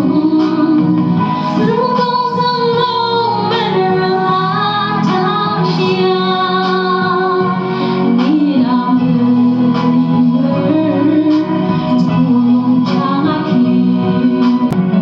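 A song with a woman singing over instrumental backing, played through a newly paired Bluetooth speaker as a test.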